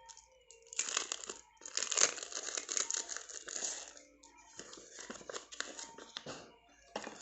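Crinkling and rustling of a folded paper instruction manual being opened out and handled, in irregular bursts that come about a second in and continue on and off.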